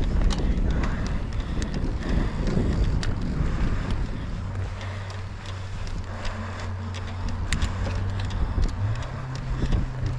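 Cyclocross bike being ridden at race pace: tyres rolling over the course with the bike's clicks and rattles, and wind buffeting the microphone. A steady low hum comes in about four seconds in and steps up in pitch near the end.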